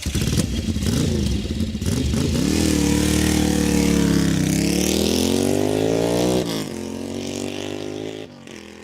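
A 150 cc motorcycle engine running and being revved. Its pitch climbs for about two seconds past the middle, then drops sharply back to a lower idle that fades near the end. The engine has a metallic rattle, metal rubbing on metal, which the owner takes for a bent crankshaft or connecting rod, something damaged inside.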